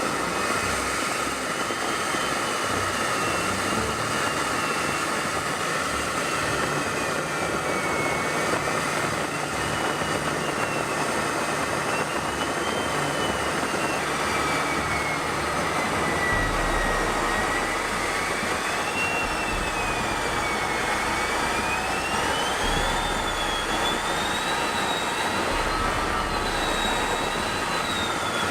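Steady rushing jet engine noise with a high whine that slowly rises and falls in pitch.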